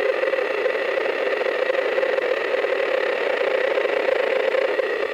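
Steady droning hum with a hiss of static from a Spirit Box radio scanner's speaker, holding one pitch without a break, like a distant truck horn.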